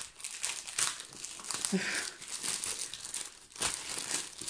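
Packaging crinkling and rustling in irregular strokes as a rolled diamond painting canvas is unwrapped and drawn out by hand.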